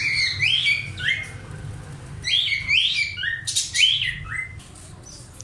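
Budgerigar chirping close by: a quick run of bright, sweeping chirps, a short pause, then a longer run that stops near the end.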